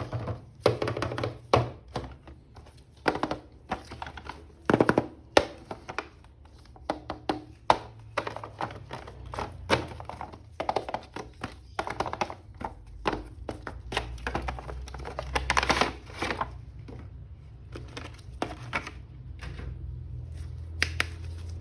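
Hands unpacking a plastic action figure from its packaging: an irregular run of sharp clicks, taps and knocks with short rustles of packaging, some clustered quickly together.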